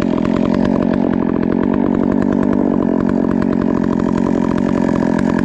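Husqvarna 372XPW two-stroke chainsaw with a hand-filed square chain, running steadily at full throttle, cutting in balsam fir. The wood is described as tough and grabby.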